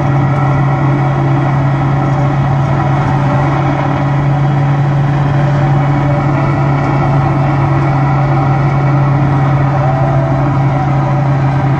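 Car AM radio tuned to static: a loud, steady hiss with a low buzzing hum, the interference taken to come from lightning.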